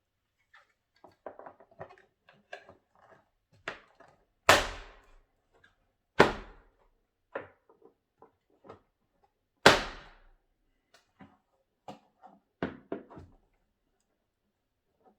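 Plastic aerobic step platform and its risers being handled and fitted together: scattered small knocks and clicks, with three much louder thuds, the first about four and a half seconds in and the last near ten seconds.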